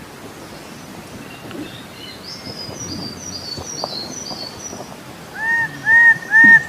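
Birdsong: faint, high twittering chirps, then about five seconds in a loud series of clear, arching whistled call notes repeated about twice a second.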